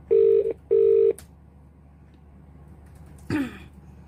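Australian telephone ringback tone through a smartphone's speaker: the double ring, two short steady beeps in quick succession, meaning the called phone is ringing and not yet answered. A brief falling sound about three seconds in.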